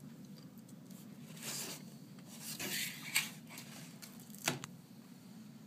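Faint scraping and rubbing of a small tool against the broken glass and frame of an iPad 2's shattered screen, with a few sharp ticks as it is pried at.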